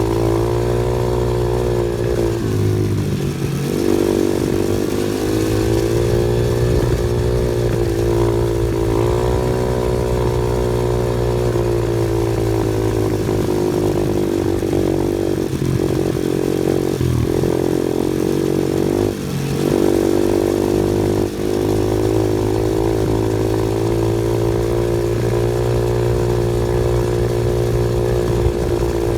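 An off-road vehicle's engine runs steadily, its pitch sagging and rising a little, with short dips in engine speed around 3 seconds in and again a few times midway.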